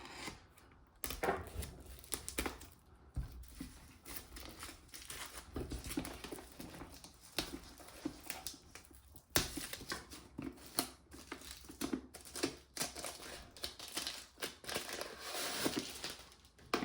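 Packaging crinkling and tearing as it is handled and opened by hand, in a steady run of irregular crackles.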